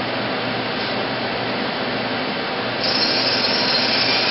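Steady running noise of a Mazak Multiplex 6200Y CNC lathe. About three seconds in, a high spindle whine starts up and holds, the sound of the spindle spinning up toward 3,500 rpm.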